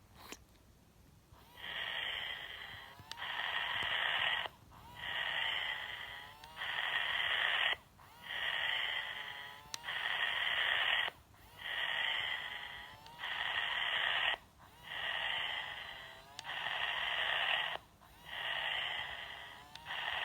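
Battery-powered toy Labrador puppy playing its recorded sleeping sound through a small speaker: slow, regular snoring breaths, in and out, each lasting about a second and a half, thin with no low end. A small click comes just before the breathing starts.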